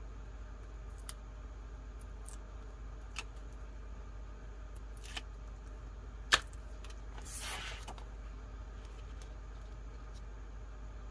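Paper-craft materials being handled on a table: a few light taps and clicks, one sharp click about six seconds in, then a short rustle of paper.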